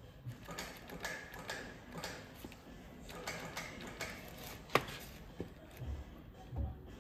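A plastic bag rustling and crinkling in the hands as it is pulled over a tractor diesel engine's fuel injection pump, with light ticks throughout and one sharp click a little after halfway. Near the end there are a couple of dull knocks against the engine.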